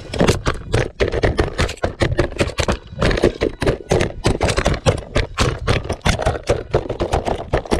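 Small wheeled robot rover tumbling down a steep slope of dry leaves and dirt: a fast, irregular clatter of knocks and scrapes, several a second, that stops abruptly at the very end.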